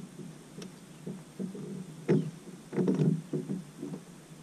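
Water slapping and lapping against a bass boat's hull in irregular low thumps, loudest about two and three seconds in.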